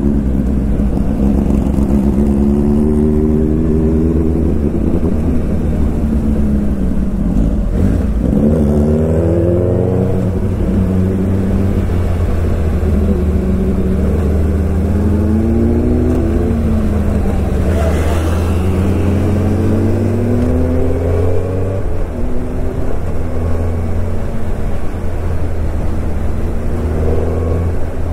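Suzuki Hayabusa's inline-four engine under way, its revs rising and falling again and again through the gears, over a steady low rumble.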